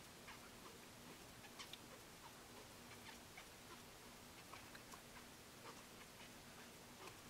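Near silence with faint, irregular soft clicks and rubs of a metal crochet hook and yarn as chain stitches are worked, a few each second.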